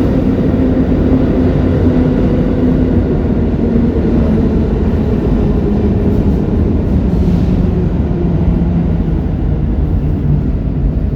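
New York City subway train pulling into the station, unusually loud, a steady rumble with a motor whine that falls slowly in pitch as the train slows.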